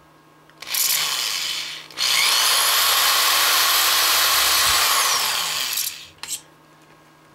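Corded electric hand drill with a 1/8-inch bit boring through a square metal antenna boom held in a vise. There is a short run of about a second, then a longer run of about four seconds as the motor spins up, cuts through and winds down.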